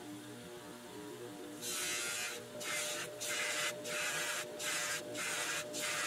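Bench grinder motor running with a cloth buffing wheel, and from about two seconds in a small metal toy hubcap pressed against the spinning wheel again and again, each pass a loud hiss lasting under a second.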